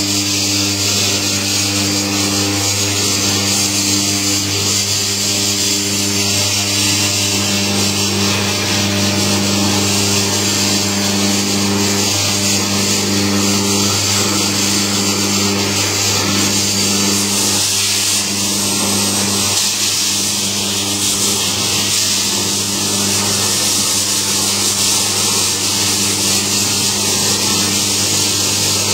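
Electric coconut milk extractor machine running steadily: a constant motor hum with a harsh rubbing, scraping noise over it. The hiss grows louder a little over halfway through.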